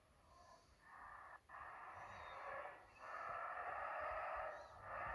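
An unexplained wheezing, groaning noise of the kind reported as a 'strange sound' in the sky. It comes in swells of a second or so each, with short breaks between them; some take it for whale sounds.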